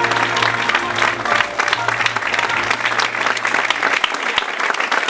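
Audience applauding, with music playing underneath; a low held note in the music stops about four seconds in.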